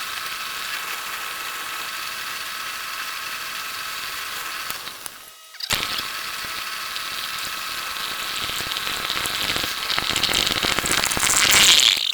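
Antique wood lathe running with a faint steady motor whine while a turning tool scrapes the spinning wood. The sound drops away briefly about five seconds in, then the cutting grows louder and harsher toward the end.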